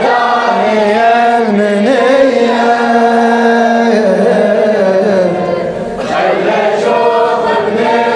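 Voices chanting a Shia latmiyya mourning lament in long, drawn-out sung notes, several voices together like a choir.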